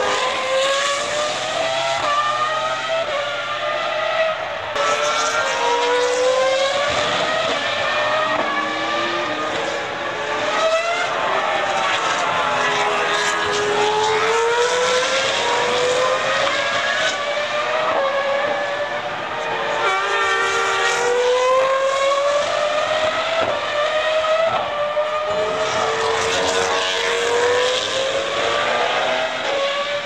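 2003-season Formula 1 V10 engines at high revs, several cars in turn accelerating through the gears: rising wails, each broken by quick upshifts that drop the pitch before it climbs again.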